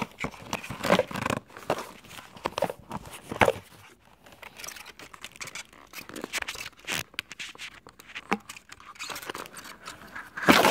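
Hands working the lid off a GoPro camera's packaging box: irregular rustling, scraping and clicking of the box and its inserts, with a louder crack just before the end.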